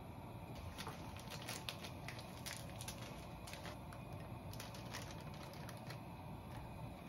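Irregular light clicks and taps of a spoon against a small glass measuring cup as seasonings are spooned in, over a faint steady hiss.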